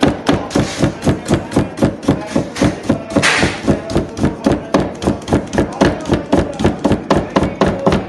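Chef's knife chopping a carrot into julienne strips on a plastic cutting board: a fast, even knocking of about four strokes a second. There is a brief hiss a little over three seconds in.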